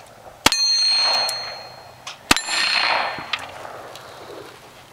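Two gunshots about two seconds apart, each followed by steel plate targets ringing with a clear metallic tone and the report echoing away over about a second.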